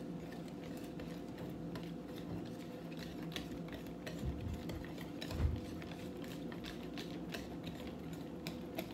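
Wire whisk clicking and scraping irregularly against a mixing bowl while a chunky filling with Oreo bits is whisked, with a dull bump about halfway through.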